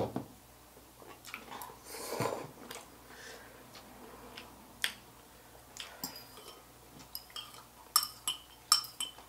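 Metal fork and spoon clinking and scraping against noodle bowls, in short scattered clinks that come thicker near the end, with a slurp of broth from a bowl about two seconds in.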